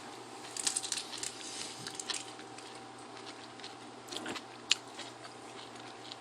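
Someone eating shellfish close to the microphone: crunchy biting and chewing with scattered sharp clicks, a cluster of them about a second in and a single sharp click about three-quarters of the way through, over a faint steady hum.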